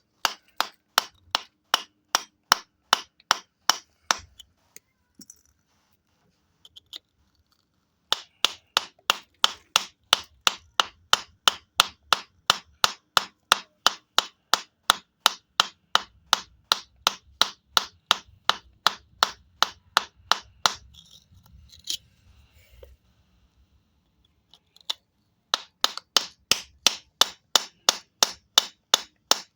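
Hammer tapping on a geode stone to crack it open, light sharp taps about three a second. The tapping stops for a few seconds twice, about a third of the way in and again past two-thirds.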